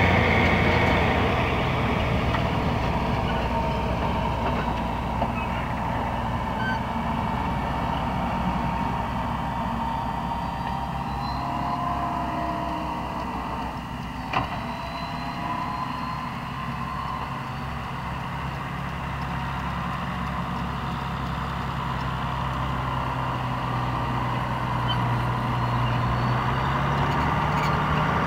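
John Deere 6900 tractor's six-cylinder diesel engine running steadily under load while pulling a corn planter. It fades as the tractor moves away and grows louder again near the end, its note rising. There is a single sharp click about halfway through.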